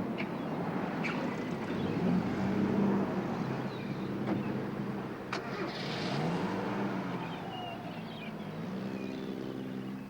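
Road traffic: car engines running and passing, their pitch rising and falling, with a few sharp clicks.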